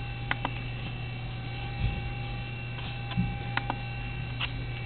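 Steady electrical hum with a few faint short clicks and a couple of soft low thumps.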